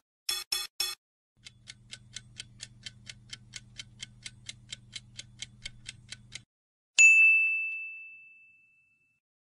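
Quiz-game sound effects: three quick pops as the answer options appear, then a countdown timer ticking about three to four times a second over a low hum for about five seconds. About seven seconds in, a single bright ding rings out and fades as the answer is revealed.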